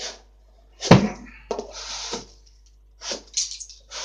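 Field-tip arrows being pulled out of a hard cardboard target: a sharp knock about a second in, then several short scraping sounds as the shafts work free of the cardboard.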